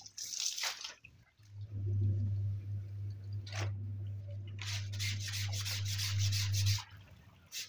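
Soapy water sloshing briefly in a basin, then a hand brush scrubbing a wet suit jacket on the floor in a quick run of short strokes from about halfway until near the end. A steady low hum runs underneath.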